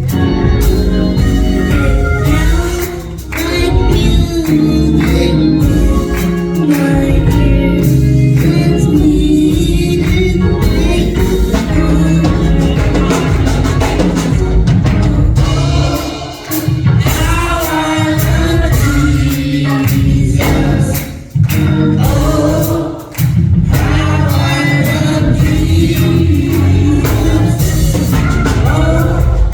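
Gospel song: singing over instrumental accompaniment.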